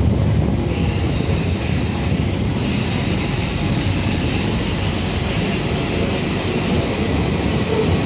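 London Underground Central line train (1992 Stock) pulling into an underground platform. A steady low rumble of wheels on track, with a higher hiss of the wheels building from about a second in and growing louder from about three seconds in as the train runs alongside the platform.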